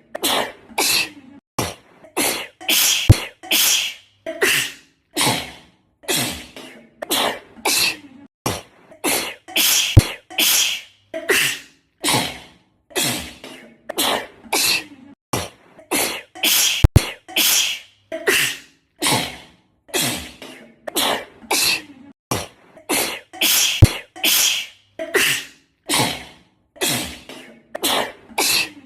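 A girl sneezing in a fit, short sneezes coming one after another about one to two a second, with a sharp click about every seven seconds.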